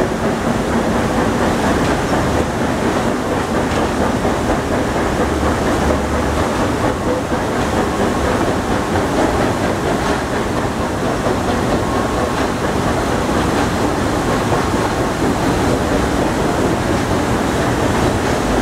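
Passenger coaches of a heritage railroad train rolling past. Their steel wheels make a steady rolling noise on the rails.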